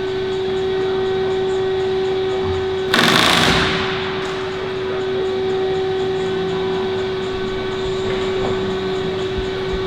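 Steady mechanical drone at a constant pitch, with a brief loud rushing noise about three seconds in.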